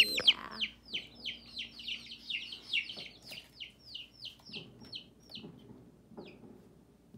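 Baby chicks peeping: a rapid run of short, high, falling peeps, about three or four a second, that grows fainter and stops about five and a half seconds in, with one last peep a moment later.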